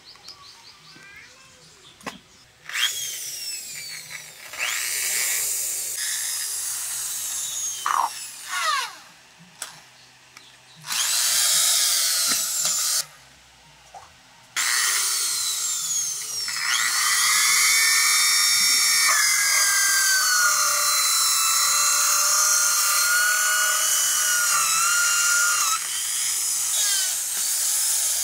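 Handheld electric power tool working a coconut shell. It runs in several short bursts, its whine falling away each time it is switched off, then runs steadily under load for about ten seconds, its pitch dipping slightly now and then.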